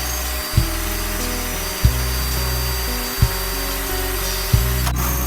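Background music with sustained low chords that change about every 1.3 s, each change marked by a sharp hit.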